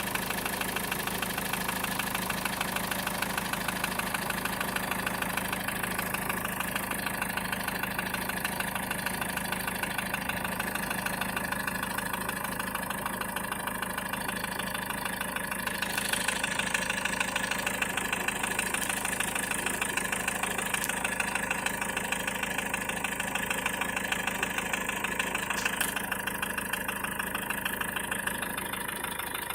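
Car engine idling steadily with a fast, even knocking tick in its running. About halfway through, a higher hiss joins and the sound gets a little louder, then the hiss drops away a few seconds before the end.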